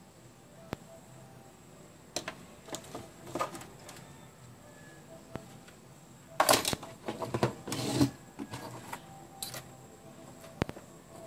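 Hard plastic robot-vacuum parts being handled on a wooden workbench: a few scattered clicks, then a cluster of clattering and scraping a little past halfway, the loudest part, and a couple more clicks near the end.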